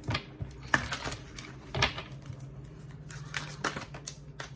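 Tarot cards being handled and laid down: a handful of sharp taps and card flicks, the loudest a little under two seconds in, over a low steady hum.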